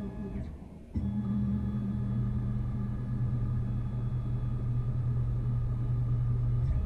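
Tormach slant-bed lathe running with a steady, pitched hum. The hum fades briefly just under a second in, then comes back abruptly and holds.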